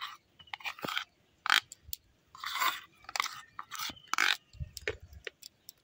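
Spoon scraping thick cream out of a plastic bowl into a steel mixer jar: a series of short, uneven scrapes.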